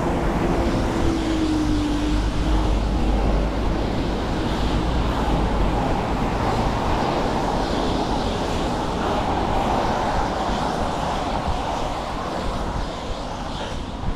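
Wind buffeting the microphone of a running body-worn camera, over a steady outdoor rush of traffic noise. A low hum fades out over the first two or three seconds.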